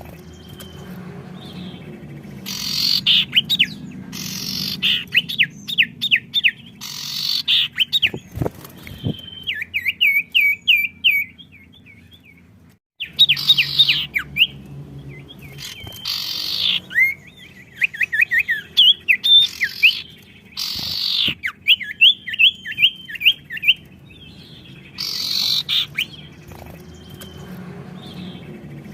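Songbirds singing actively and answering one another, in repeated bursts of fast sweeping notes and rattling trills. The audio cuts out briefly near the middle.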